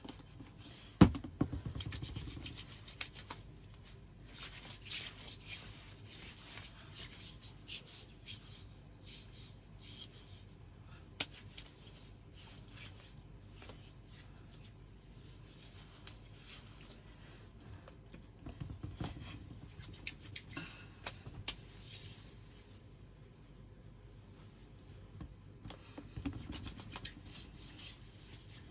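Hands rubbing lotion into bare skin: soft, scratchy rubbing that comes and goes in spells, with one sharp click about a second in.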